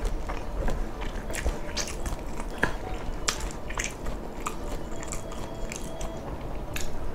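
Close-miked chewing of food, with irregular sharp wet clicks and smacks of the mouth scattered through it.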